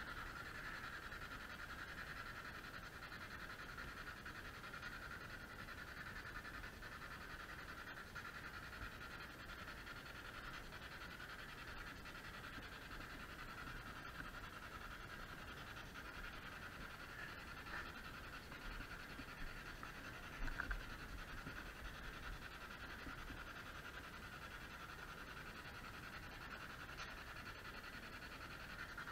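Steady hiss of radio static from a small handheld radio, sounding thin and narrow, with a couple of faint knocks about two-thirds of the way through.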